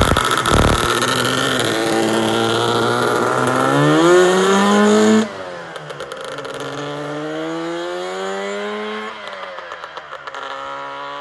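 Twin-cylinder two-stroke engine of a Lambretta TargaTwin 275cc scooter, revved with its pitch climbing steadily for about five seconds. After a sudden cut it is heard riding by, the engine pitch rising and then dropping about nine seconds in.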